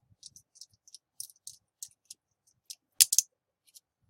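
Faint scattered clicks and ticks of a small screw being tightened down on a jumper wire in a banana plug, with a sharper cluster of two or three clicks about three seconds in.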